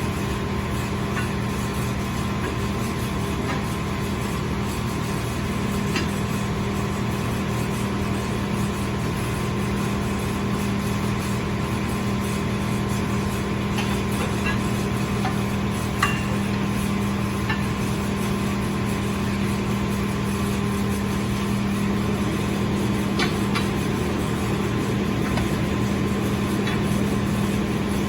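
Skid-steer loader's engine running steadily at constant speed, with a few faint metallic clicks.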